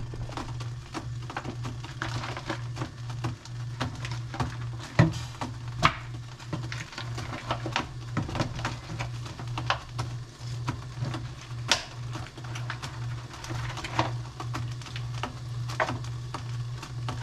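Scattered crackles and clicks as ham slices are peeled from their plastic wrap and laid in a frying pan, over a steady low hum.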